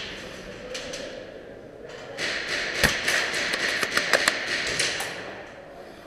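Handling noise from the airsoft sniper rifle's scope-mounted camera as the rifle is moved: fabric rustling against it, with scattered clicks and knocks. The rustling swells from about two seconds in and carries a sharp knock near the three-second mark.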